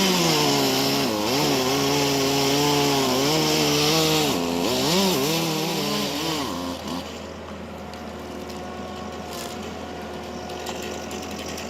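Chainsaw running at high revs and cutting wood, its engine pitch dipping and recovering as the chain bites. About seven seconds in the cutting stops and a quieter, steady machine hum remains.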